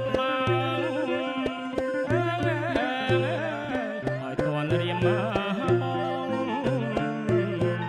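Cambodian traditional ensemble playing a song: a bowed two-string tro fiddle carries a wavering, gliding melody over a hammered khim dulcimer, a takhe floor zither and a hand drum keeping a steady beat, with a man's singing voice.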